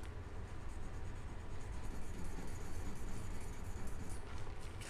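Brass rod being honed on an oiled sharpening stone: a soft, steady scraping rub of metal on stone, with a couple of light ticks near the end.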